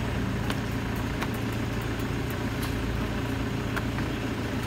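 Steady low engine hum, like a motor idling close by, with scattered light clicks of a metal spatula on the pancake griddle.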